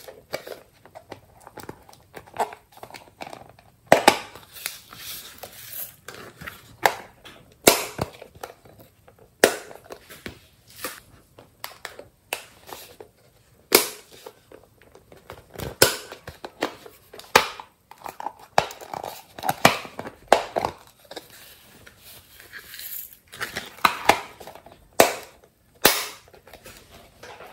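Hard plastic bunny-shaped cases handled in the hands: irregular sharp plastic clicks and snaps, about a dozen loud ones, with softer crackling and rustling between.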